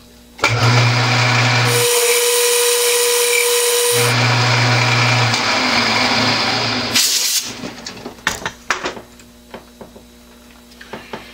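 Round-nose lathe tool chattering as it cuts a widened groove and chamfer into hard hex stock. A loud, harsh cutting noise, with a steady tone partway through, lasts about seven seconds. Then the cut stops, leaving the lathe's hum and a few clicks.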